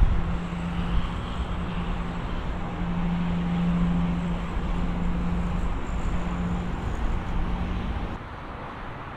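Steady road traffic noise with a low engine hum that swells and fades, dropping away sharply about eight seconds in.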